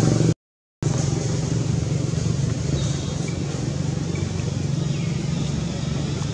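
A motor engine running steadily with a low, evenly pulsing hum. The sound cuts out completely for about half a second near the start.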